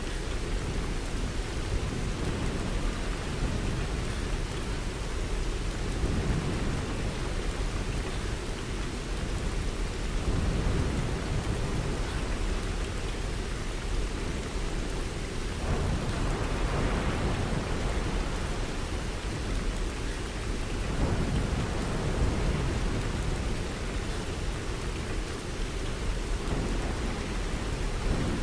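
Steady rain falling, with low swells of thunder rolling in and out every few seconds; the loudest swell comes a little past the middle.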